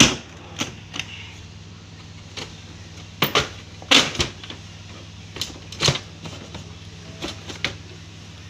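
Plastic clicks and clunks from a Samsung 3401 laser multifunction printer as its scanner unit and top cover are lifted open to reach the toner cartridge: about ten sharp, irregular knocks, the loudest at the start and about four seconds in, over a steady low hum.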